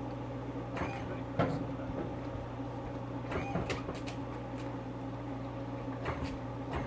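Steady low machinery hum with a few light knocks and clicks as a jet ski hanging from a davit is lowered and settled onto its cradle. The loudest knock is about a second and a half in, and a quick cluster of clicks follows a couple of seconds later.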